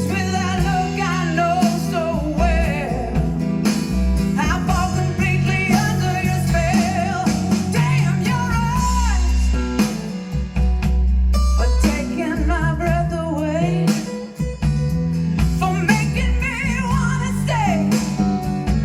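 A woman's voice singing wordless gliding runs over a band with guitar and a heavy bass line, played back through Fostex FE206EN full-range speakers driven by a Denon PMA-3000NE amplifier.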